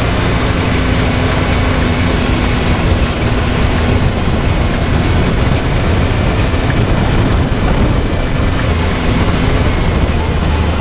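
Can-Am Maverick X3 side-by-side engine running steadily while driving on a rough trail, under a constant rumble of tyre, chassis and wind noise.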